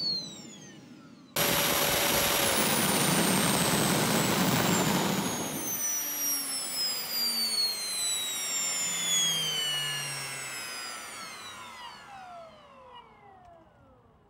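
Homemade hybrid jet engine, a 3D-printed electric compressor blowing into a stainless-steel bottle combustor, running loudly with a rushing noise and a steady high whine that cut in abruptly about a second in. A few seconds later the rushing noise drops away and the compressor's whine falls steadily in pitch as it spins down after shutdown, fading out near the end.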